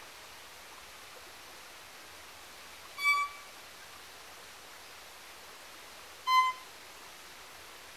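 Violin playing two short bowed notes about three seconds apart, the second a little lower, imitating the call of a pygmy wren-babbler.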